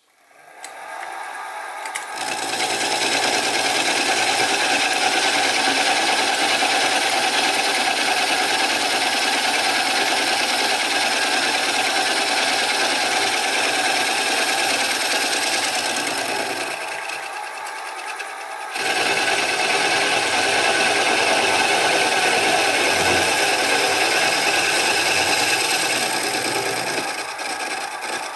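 Sieg SX2P mini mill spindle running up and a 16 mm end mill taking a light 7-thou finishing cut across the port face of a steam engine cylinder casting at 600 RPM: a steady whine of motor and gears mixed with the cutter's grinding noise. The sound builds over the first two seconds, drops for a couple of seconds about two-thirds of the way through, then picks up again.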